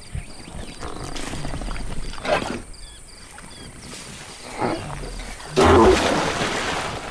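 Animal vocal sounds, three of them, the last about six seconds in the loudest and longest, over a faint, evenly repeating chirp of insects.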